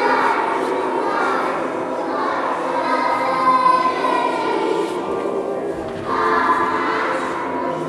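Children's choir of young children singing together, held sung notes ringing in a church's echo, with a short pause between phrases about five seconds in.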